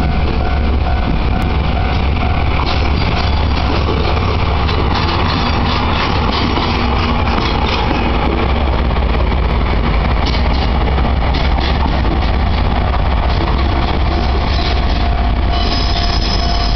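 DE10 diesel-hydraulic locomotive running light past at close range: a loud, steady low diesel drone, with clicking wheel clatter and some wheel squeal as it goes by, then moving away. A level-crossing alarm rings over it, its tone changing near the end.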